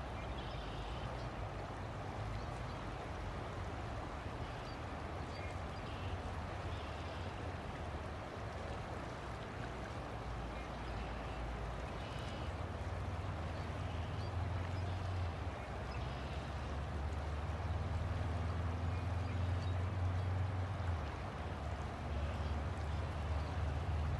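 River water flowing steadily, with a low steady hum underneath that gets louder about halfway through, and faint high chirps now and then.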